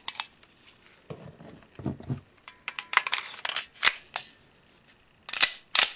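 Metallic clicks and clacks of a Beretta 96FS pistol and its magazine being handled as a snap cap is loaded into the magazine and the magazine is seated in the grip, ending with two sharp clacks close together near the end.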